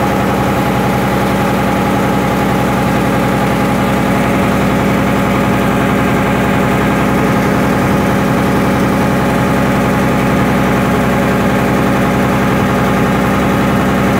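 Popopo riverboat's single-cylinder inboard diesel engine running steadily under way, a loud, even putter that does not change pace.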